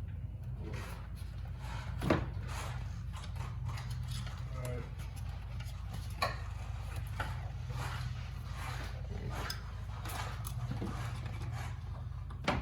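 Hand work on a car's cold air intake: the intake tube and its hose clamp being handled and worked onto the throttle body, with scattered knocks and rubbing over a steady low hum. The loudest knock comes about two seconds in, and another about six seconds in.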